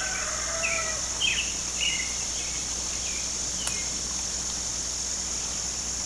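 Steady high-pitched insect chorus of crickets, a continuous shrill trill, with a few short bird chirps in the first two seconds and one faint click a little past the middle.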